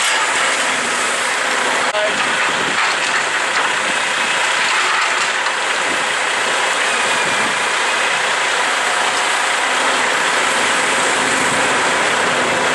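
Heavy diesel machinery running steadily as a log loader swings its grapple to load logs onto a log truck, with a faint steady whine over the engine noise.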